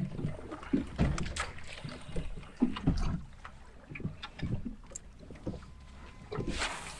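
Small boat on the water: waves slapping irregularly against the hull, with a few sharp knocks.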